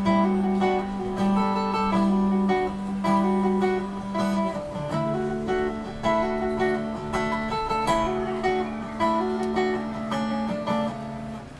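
Instrumental passage of a slow pop ballad: acoustic guitar strumming chords over a held bass line, with no singing. The music drops away near the end.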